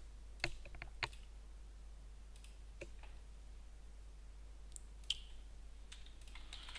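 A few faint, scattered clicks of a computer mouse, a second or more apart, over a steady low electrical hum.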